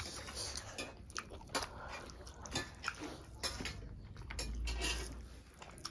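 Close-up eating sounds: wet chewing and mouth clicks of people eating rice by hand, with soft squelches of fingers mixing food. A brief low rumble comes about four and a half seconds in.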